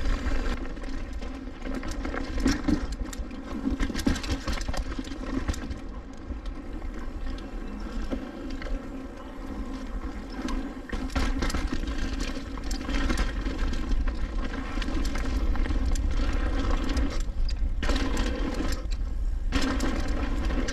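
Mountain bike riding down a dirt trail: tyres rolling and the bike rattling over rough ground with frequent knocks, a steady buzzing hum, and wind rumbling on the microphone.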